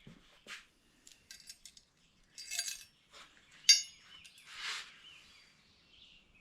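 Light clinks and clicks of small bicycle bottom-bracket parts being handled, with one sharper click a little before the middle and a few soft rustles.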